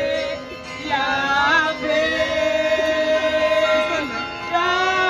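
A woman sings a worship song into a handheld microphone, amplified, holding long notes over steady backing music, with a short break between phrases just under a second in.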